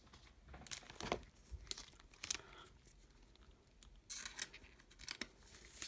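Trading cards and their plastic packaging being handled, with short crinkling, tearing and clicking rustles coming in bursts, the longest about four seconds in.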